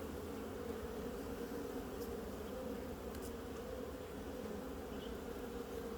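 Honey bees buzzing in a steady hum around an open hive, with a few faint clicks.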